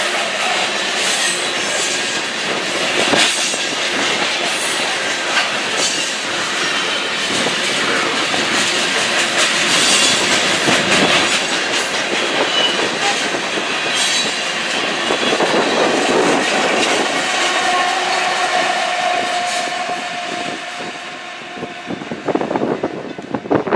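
Freight train of covered hopper cars rolling past close by: a steady rumble of steel wheels on rail with clickety-clack over rail joints. A thin, drawn-out wheel squeal comes in about two-thirds of the way through, and the sound drops and turns choppier near the end.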